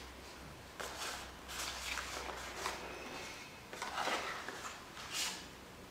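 Soft scuffs and rustles of a cardboard phone box being handled as its lid is opened and the inside reached into, several short brushes about a second apart.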